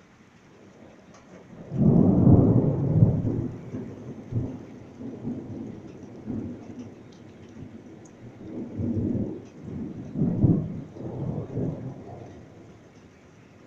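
Thunder rumbling: a sudden loud onset about two seconds in, then rolling in several swells that fade near the end, over a faint steady hiss of rain.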